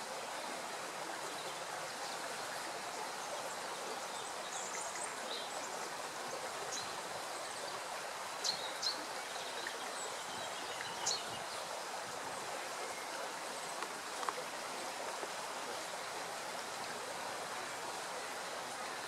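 Steady rushing outdoor background noise, with a handful of short, high bird chirps over it: a pair about halfway through, a single one a little later, and another near three quarters of the way.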